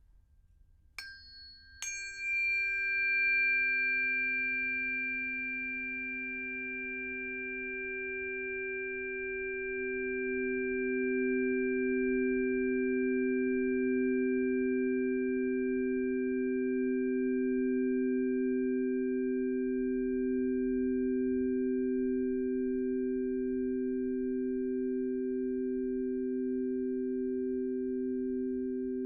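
Two tuning forks struck a little under a second apart, then ringing together as two steady pure tones with a slow wobble between them, their brief high clang fading within a few seconds.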